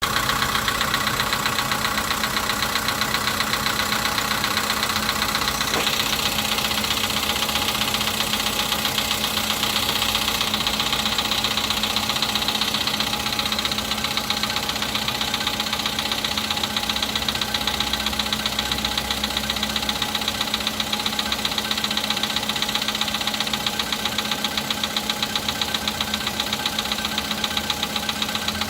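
Volkswagen Polo's 1.6-litre CFNA four-cylinder petrol engine idling cold, with a rapid, steady knock in time with the engine. It is a cold-start knock that clears once the engine warms, the fault for which the pistons were replaced under warranty.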